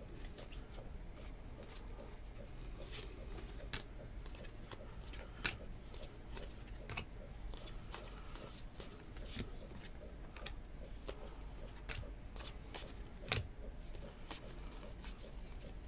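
A stack of 2019 Legacy football trading cards being flipped through by hand: faint, irregular clicks and slides of card against card.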